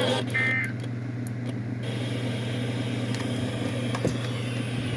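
Weather radio receiver playing dead air after an alert broadcast: a steady electrical hum with hiss. Two brief electronic tone blips come at the start, the hiss changes about two seconds in, and there is a faint click about four seconds in.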